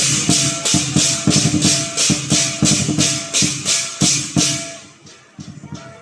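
Lion dance percussion: a drum beating with clashing cymbals about three strokes a second, the playing falling quieter about five seconds in.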